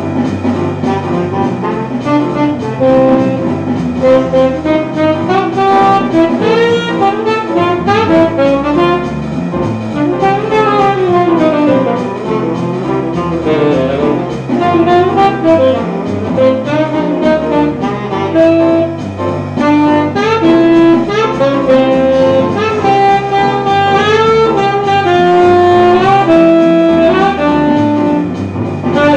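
Tenor saxophone played through a repaired hard-rubber Otto Link mouthpiece: jazz phrases of held notes and fast runs sweeping up and down, over a backing track with a bass line.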